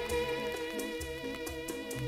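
Electronic organ music playing from a vinyl record on a turntable: sustained melody notes over a held bass line, with a light, steady beat.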